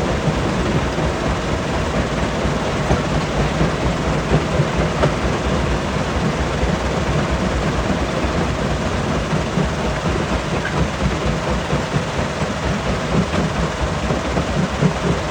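Stone crusher running, a steady heavy rumble with a dense, uneven clatter of rock being broken.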